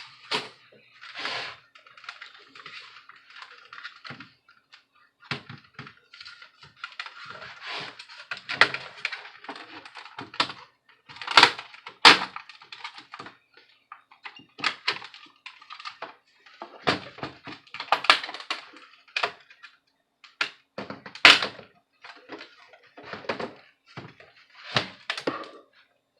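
Laptop plastic parts and small tools being handled during disassembly: irregular clicks, taps, knocks and light scraping, loudest in a few sharp clicks about halfway through and again later.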